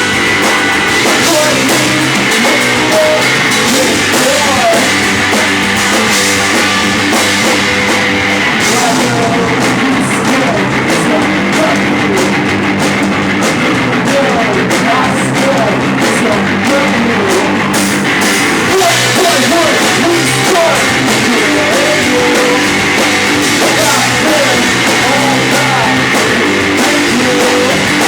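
A live rock band playing a song: guitar and drum kit, with singing.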